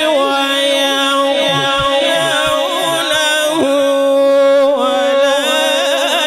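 Male reciter chanting the Quran unaccompanied in melodic tajweed style, holding long ornamented notes that waver and bend in pitch without a break.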